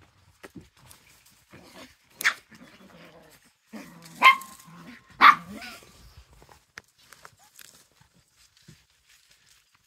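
Small Chihuahua dogs yapping in play: one sharp yap about two seconds in, then two louder yaps a second apart near the middle.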